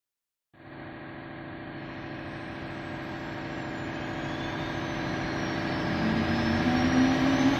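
Two-head stone and marble CNC router running: a steady machine hum that starts about half a second in and gradually grows louder, with a high whine that glides down and back up and a low tone that rises in pitch near the end.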